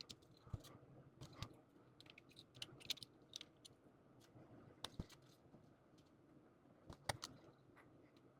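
Faint, scattered clicks and taps of small plastic model kit parts being handled and fitted together, with the sharpest taps about five seconds in and about seven seconds in.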